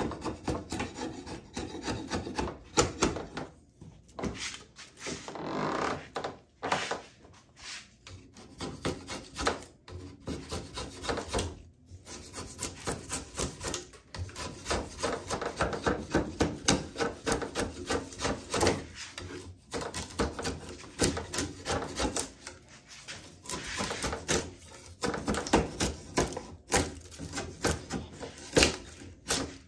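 Sharp vintage drawknife pulled through wood, shaving it off in quick repeated scraping strokes, with short pauses between runs of strokes.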